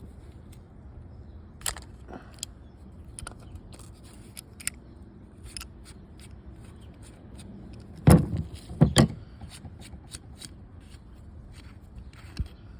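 Keihin carburetor being opened up by hand: light clicks and scrapes of small metal parts, with two louder knocks close together about eight seconds in.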